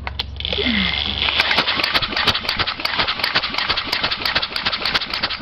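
Small Tecumseh single-cylinder engine starting about half a second in and running with rapid firing knocks, firing on the 610748 ignition coil under test. That is the sign the coil makes spark.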